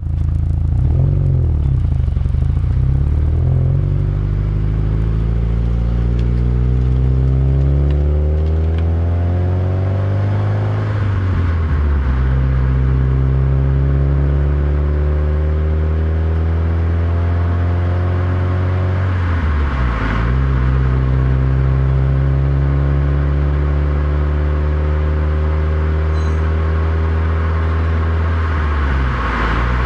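Subaru WRX STI engine accelerating through the gears of its manual gearbox: the note climbs steadily in each gear and drops at the upshifts, about a third and two-thirds of the way through and again near the end.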